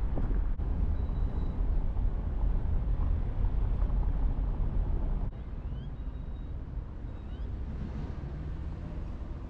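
Low rumble of wind and road noise from a moving car. About five seconds in it drops abruptly to a quieter, steadier rumble.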